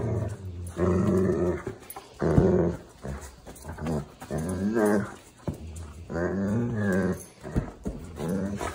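Pet dogs growling in play over plush toys: several drawn-out growls with short pauses between them.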